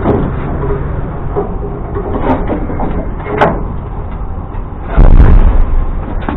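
An engine running with a steady low rumble, under scattered metal knocks and clanks. About five seconds in there is a loud, low thump.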